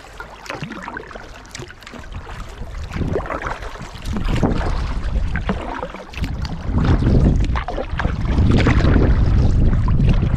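Water splashing around a kayak as it is paddled through choppy waves, with wind buffeting the microphone; the wind rumble grows heavier in the second half.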